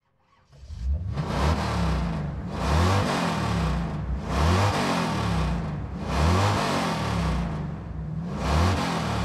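Racing car engines passing by one after another, about five pass-bys in quick succession. Each one swells and falls away with a sliding engine pitch. The sound fades in about a second in.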